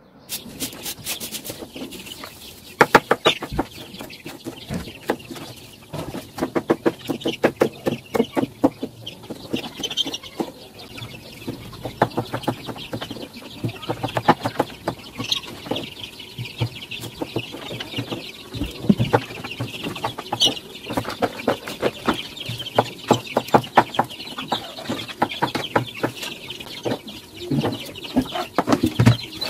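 Kitchen knife chopping onions and tomatoes on a wooden cutting board, in quick runs of sharp knocks, while chickens call.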